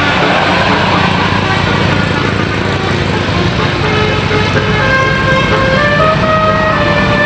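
Loud engine rumble throughout. About three and a half seconds in, a bus telolet horn joins it, playing a stepped multi-note tune.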